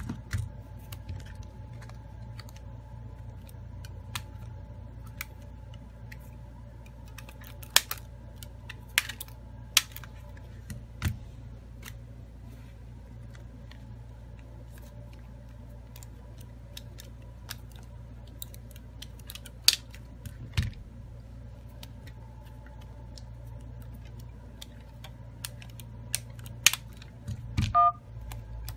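Scattered clicks and taps of a smartphone being handled and set down on a silicone repair mat, over a steady low hum. Near the end, a brief dial-pad key tone as a key on the phone's dialer is tapped.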